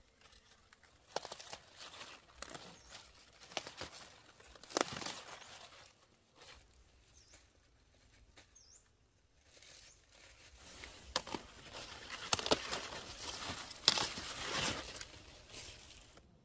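Leafy garden greens rustling and snapping as they are picked and handled. It comes in two spells of crackly rustling with sharp snaps, the second, near the end, louder.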